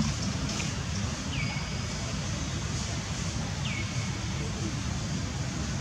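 Steady low rumble of outdoor wind on the microphone, with a short high call that falls in pitch and levels off, heard twice.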